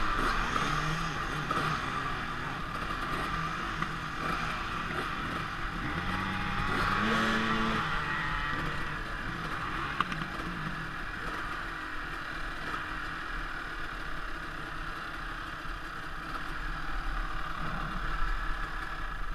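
Several dirt-bike engines running, with one revving up briefly about six to eight seconds in.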